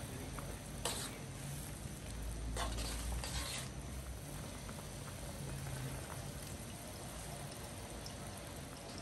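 Tom yum broth simmering in a wok, with a ladle stirring through the liquid for about a second a few seconds in.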